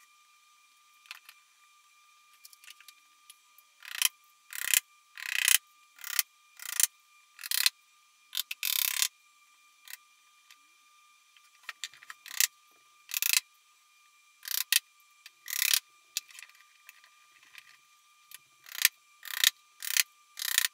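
Metal bar clamps being slid along their bars and tightened down on a glue-up: an irregular run of short metallic scrapes and clicks, some in quick pairs, busiest from about four seconds in.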